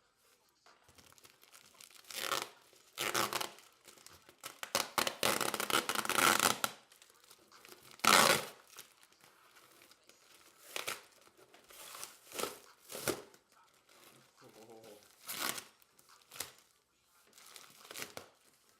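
A cardboard shipping box being cut and torn open with a steak knife: a run of irregular ripping and scraping noises. The loudest is a long rip about a third of the way in, with a sharp one just after.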